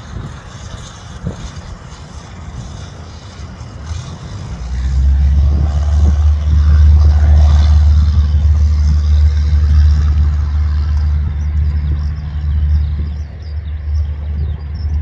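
Cessna 172's piston engine and propeller at full power for a go-around: a low steady drone that swells sharply about four and a half seconds in and stays loud, easing near the end.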